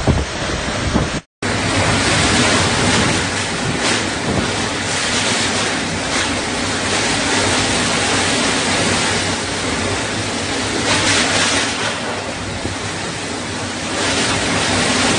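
Storm-force wind and driving rain: a dense, steady rush that swells and eases with the gusts, with wind buffeting the microphone. It drops out briefly about a second in, then carries on.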